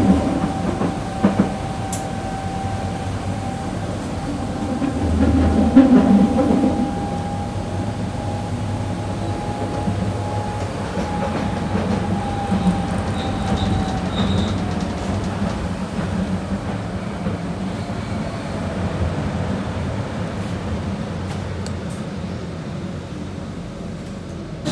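Berlin U-Bahn train running on rails, heard from inside the carriage: a steady rumble of wheels on track, louder for a moment about five seconds in, with a thin motor whine that holds, then drops in pitch and fades about twelve to fourteen seconds in as the train slows for the station.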